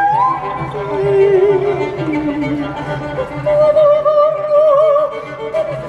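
Live music: a bowed violin playing a slow melody of long, held notes with vibrato and gliding pitch, over a steady low tone underneath.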